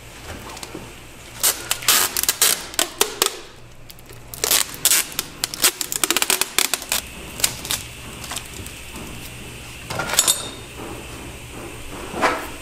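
Quick runs of sharp clicks and clatters as a textured-covered sword grip is handled and worked onto the blade's tang by hand: two dense bursts in the first half, then a few scattered clicks later on.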